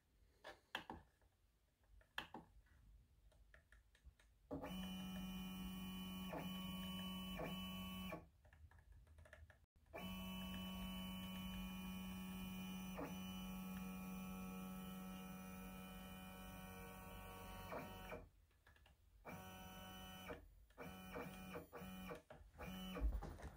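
Stepper motors of an MPCNC LowRider2 CNC machine driving the gantry along the X axis, whining steadily on one pitch. The whine comes as one run of about four seconds, then one of about eight seconds, then several short jogs of a second or so near the end, with quiet pauses between.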